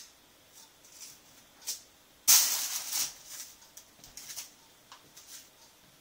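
Rose-ringed parakeets feeding at garden seed feeders: scattered short, scratchy, high-pitched sounds, with one loud hissing burst lasting about a second, a little over two seconds in.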